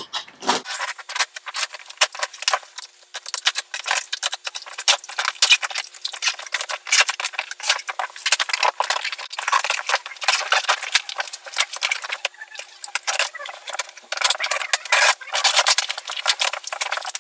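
Knife slitting packing tape on a cardboard shipping box: a dense run of scraping, crackling and rustling cardboard as the box is cut, turned over and its flaps pulled open near the end.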